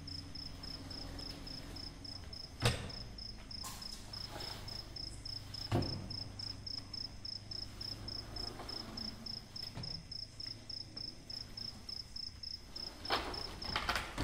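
A cricket chirping steadily, a high note pulsing about three times a second. A few sharp knocks break in, the loudest about three seconds in, others near the middle and near the end.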